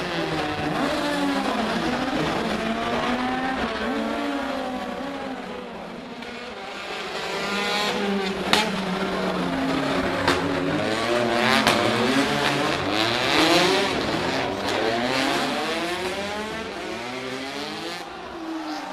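Rally car engines racing at full throttle, revving up and dropping again and again through gear changes, with tyre squeal. Sharp cracks come about eight and a half and ten seconds in.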